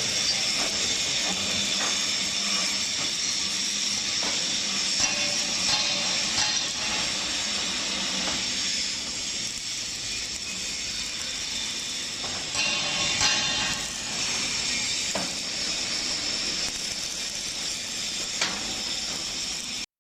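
QTJ4-25D concrete block-making machine running: a steady mechanical clatter and high hiss, with a few scattered knocks.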